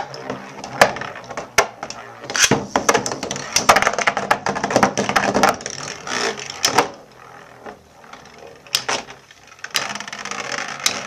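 Two Metal Fusion Beyblade spinning tops, Storm Pegasus and Lightning L-Drago, spinning and clashing in a stadium: rapid clicks and knocks for about the first seven seconds, then only a few scattered hits.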